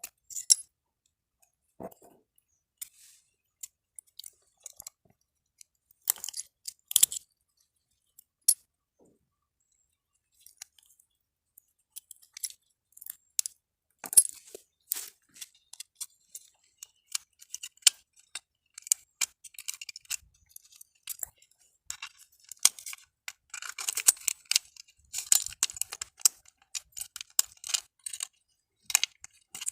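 Small plastic and metal parts of a burnt miniature circuit breaker being handled and pried apart: scattered clicks, clinks and short scrapes, sparse at first and much busier in the second half.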